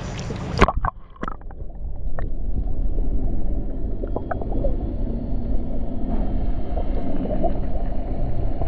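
An action camera plunges through the sea surface with a splash about half a second in, then everything turns muffled underwater: bubbles gurgling and clicking, over a steady low rumble.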